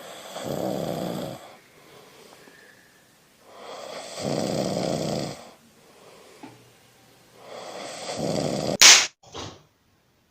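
A person snoring, three long, drawn-out snores a few seconds apart. Near the end comes a short, sharp, louder burst, and then the sound stops.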